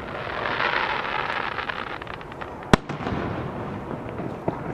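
Fireworks display: a rushing hiss as shells go up, a few scattered crackles, then one sharp loud bang about three seconds in and a smaller bang near the end.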